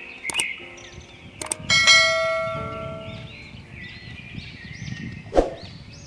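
A bell-like chime rings out about two seconds in and dies away over a second or so, the loudest sound here. Underneath, a small songbird keeps up a run of quick chirps, with a few sharp clicks.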